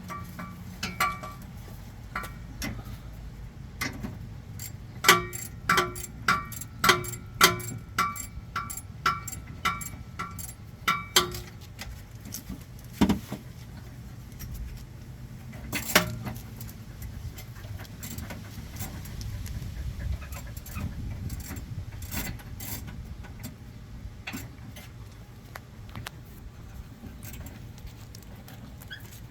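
Hand tools clinking on metal hardware while sway bar end links are fitted: a run of ringing metallic clicks about twice a second, then a couple of sharper knocks, over a steady low hum.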